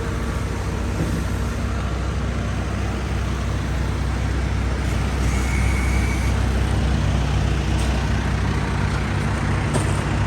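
Heavy equipment's diesel engine running steadily, its low hum growing slightly fuller about three seconds in.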